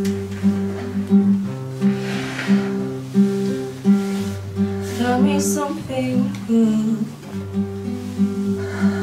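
Music: an acoustic guitar playing a steady, repeating chord pattern over held bass notes.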